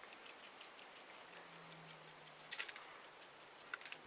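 Steel cross-feed lead screw of a lathe being turned by hand through its clamped split nut: a quick, even run of faint, light metallic ticks, about seven a second, then a few scattered clicks. At this point on the screw it turns freely.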